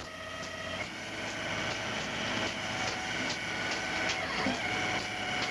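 Deck machinery on a longline fishing boat running with a steady whine of several pitches over a low hum, with repeated light clicks.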